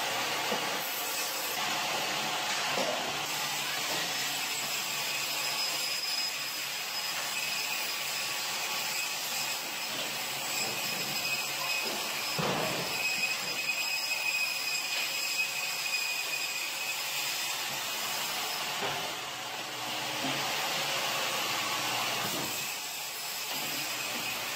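Band saw running steadily as it cuts through frozen tuna, a constant hiss with a faint high whine, with a few knocks and scrapes as the frozen fish are shoved across the steel table.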